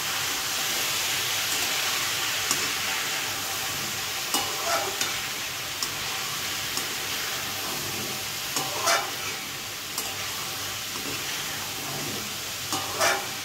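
Metal spatula stirring diced potatoes and long-bean seeds in a metal kadhai while they fry in oil, with a steady sizzle. A few louder scrapes of the spatula against the pan come every few seconds as the spices are mixed in.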